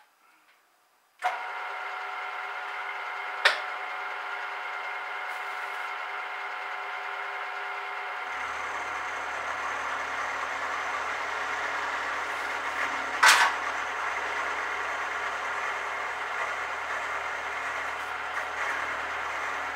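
Milling machine motor switched on about a second in and running steadily with a whine. About eight seconds in a lower hum joins as the cut goes on. A single sharp knock sounds a little past halfway.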